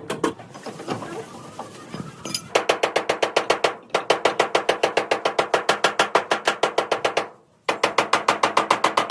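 Rapid, evenly spaced hammer blows on metal, several a second, each with a short ring. They come in runs, with a brief break about four seconds in and a longer one near the end.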